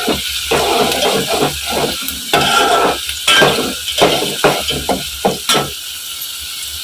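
Chopped onions sizzling in hot oil in a metal pot, frying toward golden, while a steel spoon stirs and scrapes through them in quick, irregular strokes. The stirring stops near the end, leaving only the steady sizzle.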